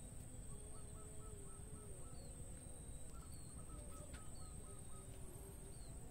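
Wild birds calling: two runs of short, quickly repeated notes, about five a second, with brief high chirps scattered between, over a faint outdoor rumble.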